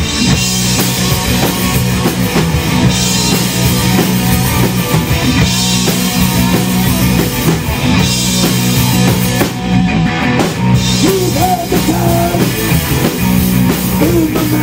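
Instrumental intro of a loud rock song, with a full drum kit driving a steady beat under the band. The cymbals drop out briefly about two-thirds of the way through.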